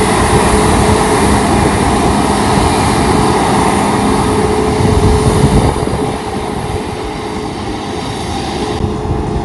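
Jet airliner's engines running as it taxis on the runway: a loud, steady rush with a faint hum in it, easing off about six seconds in.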